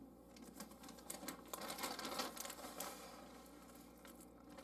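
Plastic bag of shredded cheese crinkling and rustling as it is handled and cheese is sprinkled over a tortilla, a dense crackle that is busiest in the middle.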